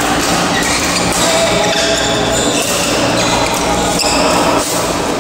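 Badminton rally: rackets striking the shuttlecock every second or so, with footsteps on the court, echoing in a large hall.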